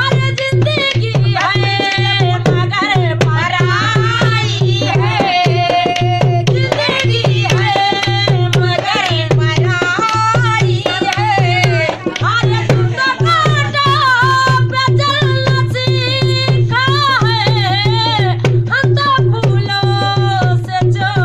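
Women singing a Hindi song to a hand-played dholak, the rope-laced barrel drum keeping a steady rhythm under the voices.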